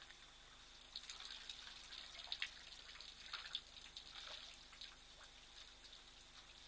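Faint splashing and dripping of water at a waterhole as elephants drink, lifting water in their trunks to their mouths; a scatter of small splashes, busiest in the middle.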